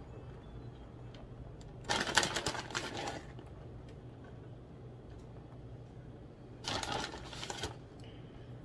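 Plastic bag of shredded mozzarella crinkling as a hand reaches in for the cheese, in two bursts about a second long, about two seconds in and again about seven seconds in. A steady low hum runs underneath.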